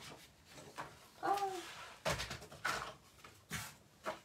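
A few soft knocks and rustles of craft supplies being handled and moved, with a short vocal sound falling in pitch a little over a second in.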